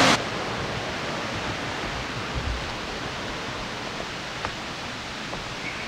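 Steady rush of water from a woodland waterfall and brook, an even hiss with no rhythm.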